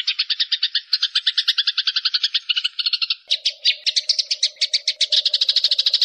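Masteran tutor recording of bird and insect calls: a rapid, evenly pulsed high trill at about fourteen pulses a second. About three seconds in it gives way to a different, buzzier pulsed trill with a lower steady tone underneath.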